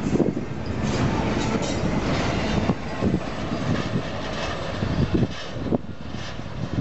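Double-stack container cars of a freight train rolling past, steel wheels knocking and clacking over the rail joints. The sound drops a little about three seconds in as the last car goes by and the train moves off.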